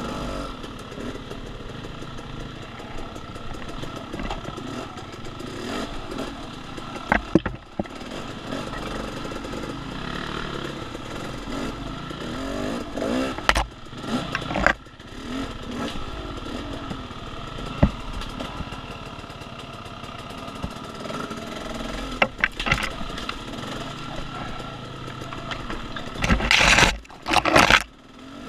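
Off-road dirt bike engine running and revving on a woods trail, rising and falling in pitch with the throttle. Sharp knocks and clatter come every few seconds, and there is a louder burst of clatter near the end.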